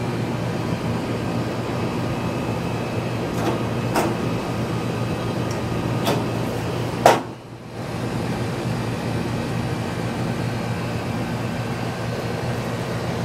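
Corrugated metal hurricane shutter panels clicking and knocking a few times as they are handled and fitted over a window, the sharpest knock about seven seconds in, over a steady low mechanical hum.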